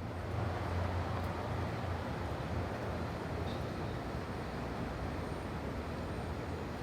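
Residential daytime ambience: a steady low rumble of traffic, with a faint bird chirp a couple of times.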